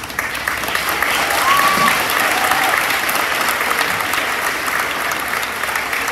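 Audience clapping, loud and steady, with one short high note rising above it about a second in.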